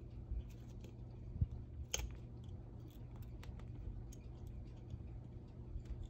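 Faint handling noise of a metal marlinspike working cord ends into a tight monkey's fist knot: scattered small clicks and rubbing, with one sharper click about two seconds in, over a steady low hum.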